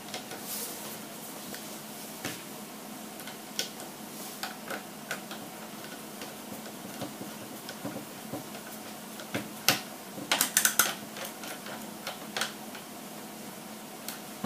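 Irregular small clicks and taps of hand tools and small parts being handled while assembling an RC truck kit's suspension, with a quick run of sharper clicks about ten seconds in. A faint steady hum lies underneath.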